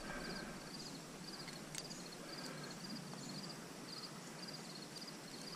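Faint, regular chirping of a cricket, about two short pulsed chirps a second, over a light background hiss, with one brief click about two seconds in.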